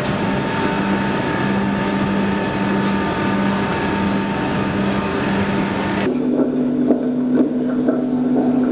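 Underground railway platform noise: the rumble and steady electric hum of a train at the platform. It changes abruptly about six seconds in to a quieter steady hum with a few light ticks.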